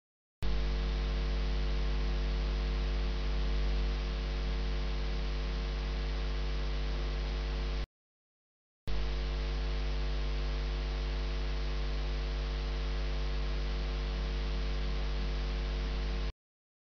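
Steady electrical mains hum with hiss from the recording chain, with no other sound over it. It begins about half a second in, drops to dead silence for about a second near the middle, and cuts off shortly before the end.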